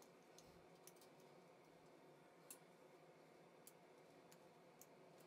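Near silence with a few faint, scattered clicks: a small mounting screw being set and started by hand screwdriver into the plastic housing of a Romex splice kit.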